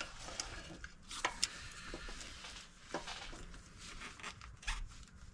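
A few faint, scattered metallic clicks and scrapes from large channel-lock pliers worked against a truck's front ball joint, testing it for play.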